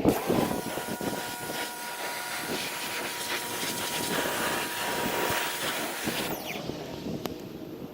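Greenworks electric pressure washer running with a thin steady whine, its water jet hissing against the surface being cleaned, until the spray stops about six seconds in.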